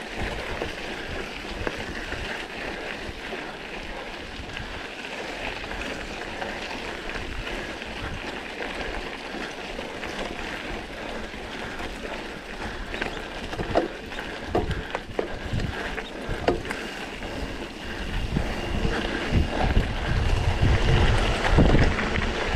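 A mountain bike being ridden along a forest trail: wind on the microphone and tyre noise, with a few sharp knocks and rattles in the middle. The rumble grows louder near the end.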